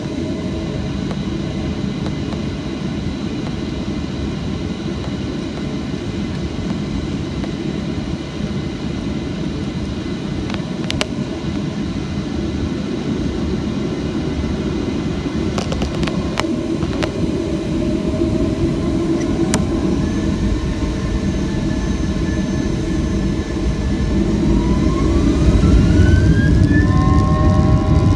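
Boeing 737-800's CFM56 jet engines and rolling noise heard inside the passenger cabin, growing steadily louder as the engines spool up for the take-off roll. Rising whines come in during the last third, with a few sharp clicks along the way.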